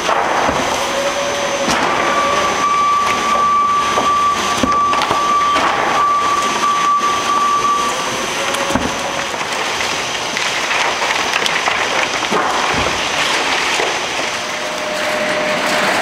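Baler infeed conveyor running while sheets of poly-coated waste paper rustle and tumble off it into the baler hopper, a loud steady clatter. A thin high whine sounds for about six seconds starting around two seconds in.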